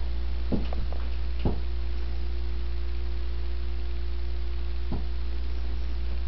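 A steady low hum with a faint higher tone over it, and a few soft knocks in the first second and a half and again near five seconds.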